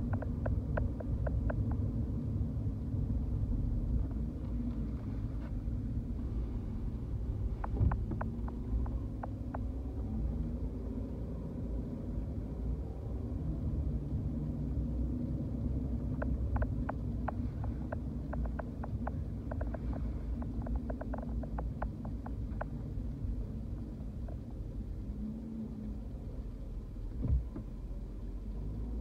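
Car driving slowly, heard from inside the cabin: a steady low engine and road rumble. Runs of light clicks come through several times, and there is a single thump near the end.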